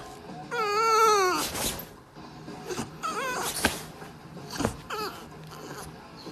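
French bulldog whining in pitched, wavering cries. A long cry about a second in wavers and then falls, and shorter cries follow a couple of times after it.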